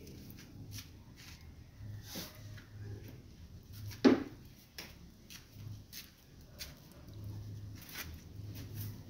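Scattered light knocks and clatter of a long-handled plastic dustpan and a soft grass broom being picked up and handled, with one sharp knock about four seconds in.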